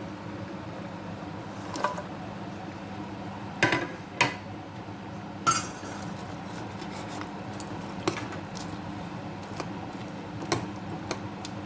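Kitchen utensils clinking and knocking against a cooking pot and dishes: about six separate sharp clinks spread out, the loudest in the middle, over a steady low hum.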